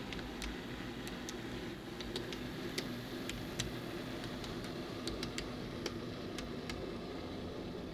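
N-gauge model train running on its track: irregular light clicks, a few a second, as the wheels pass over the rail joints, over a steady low hum from the running train.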